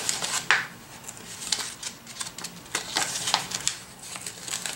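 Hands handling paper and planner stickers: scattered light clicks and paper rustles, the sharpest click about half a second in.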